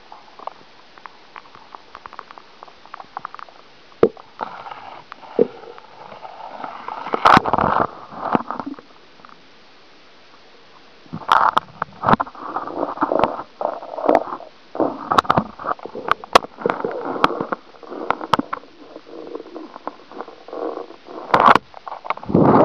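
Muffled, irregular knocking, rustling and water noise of an underwater camera being moved about, heard through its waterproof housing, with scattered sharp clicks. The noise drops away for a couple of seconds about halfway through, then comes back busier.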